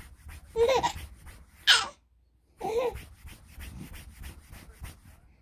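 Baby babbling and squealing in play: three short high-pitched vocal sounds about a second apart, the middle one a sharp squeal and the loudest, over rubbing and handling noise.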